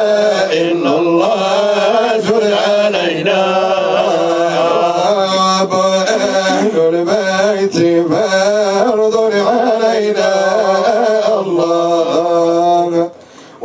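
Sufi devotional chanting (dhikr): long, drawn-out melodic vocal lines sung over a steady low held note. The chant drops away briefly near the end, then resumes.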